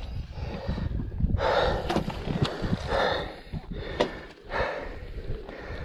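A man breathing hard, with three loud gasping breaths about a second and a half apart, winded from the strain of manhandling a heavy motorcycle up a rocky climb.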